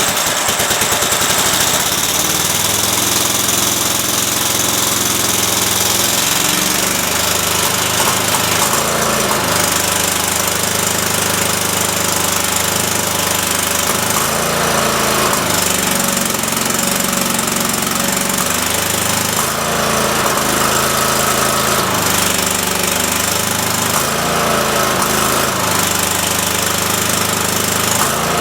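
Cub Cadet lawn tractor's Kohler 22 hp engine running just after start-up, on a test run following carburetor work. Its note shifts up and down every few seconds rather than holding steady.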